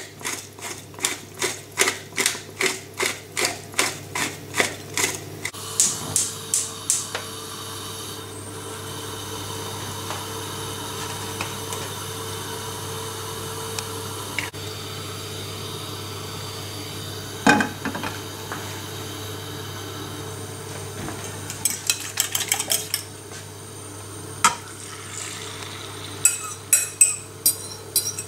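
A hand pepper mill grinding, with rapid clicks about three a second that stop about five seconds in. A steady low hiss follows, broken once by a sharp knock. Near the end a fork clinks against a glass bowl as beaten eggs are poured into the frying pan.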